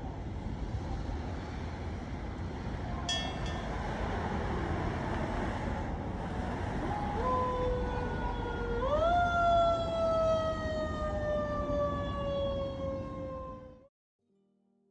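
A siren starts partway through, rises in pitch about nine seconds in, then slowly falls, over a steady background rush. The sound cuts off suddenly near the end.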